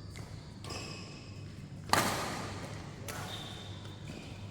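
Badminton rackets striking a shuttlecock during a doubles rally: about four sharp hits, with the loudest about two seconds in, each followed by hall echo.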